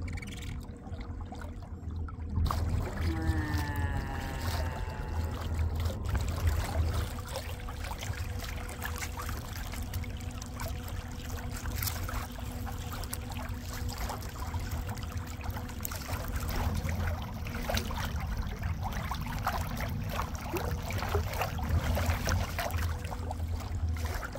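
Water rushing and splashing along a kayak hull under way, with wind rumbling on the microphone and a faint steady whine from the Island Hopper electric kayak motor. A short falling call sounds about three seconds in.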